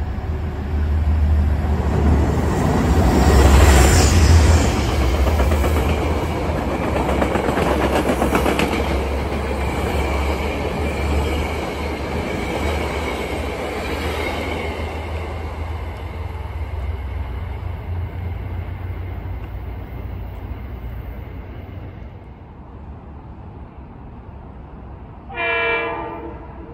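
A passenger train passing close by on the rails, loudest about four seconds in, then fading away over the next ten seconds. Near the end, an oncoming train sounds one short horn blast.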